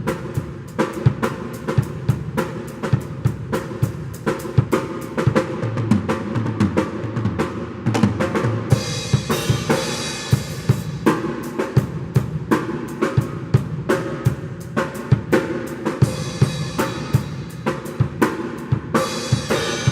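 Acoustic drum kit playing a steady beat of kick and snare hits, with cymbal crashes washing in about nine seconds in and again near the end.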